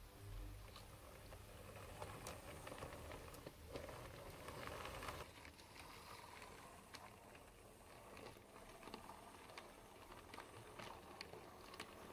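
Faint whirr of a model OO-gauge 0-4-0 diesel shunter's small electric motor on a Hornby chassis running, loudest for the first five seconds or so, with scattered light clicks of its wheels over rail joints.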